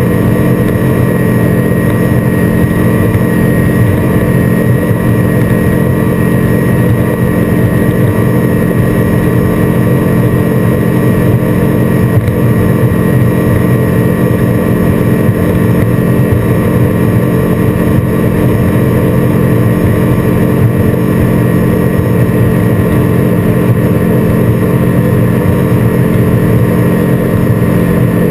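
Seven Marine 557 supercharged 6.2-litre V8 outboard running steadily at high speed, over the rush of water and spray along the hull.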